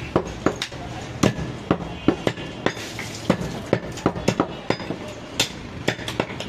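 Butcher's cleaver chopping mutton leg on a wooden log chopping block: a run of sharp, irregular chops, about three a second.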